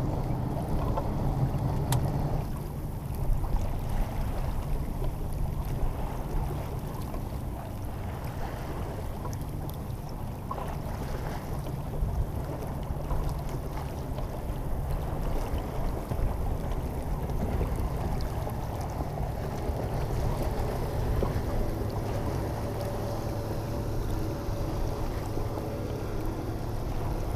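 Steady wind buffeting the microphone over the wash of water along the hull of a J-35 sailboat under sail.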